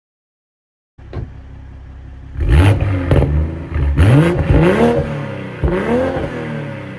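BMW M240i's B58 turbocharged inline-six exhaust, starting about a second in at idle, then revved in several quick throttle blips, each rising and falling in pitch.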